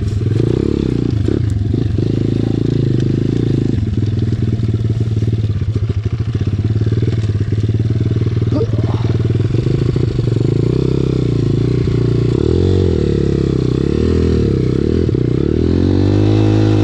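SSR 170TX pit bike's engine running as it is ridden. In the last few seconds the revs rise and fall several times in quick succession.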